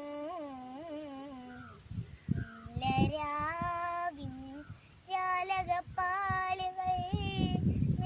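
A young girl singing solo and unaccompanied, holding long notes with ornamented turns and wavers in pitch. The singing breaks off briefly about two seconds in and again around five seconds.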